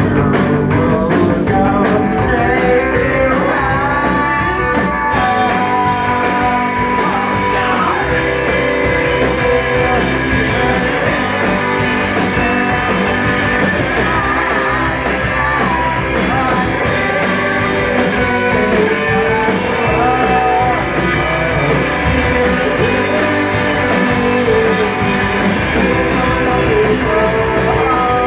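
A rock band playing a song live: electric guitar and singing over a full band.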